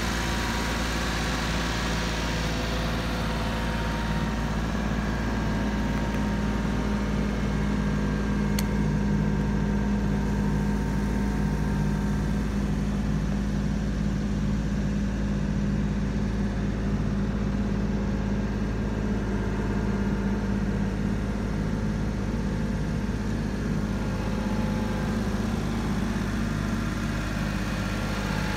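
Mitsubishi Minicab kei truck engine idling steadily.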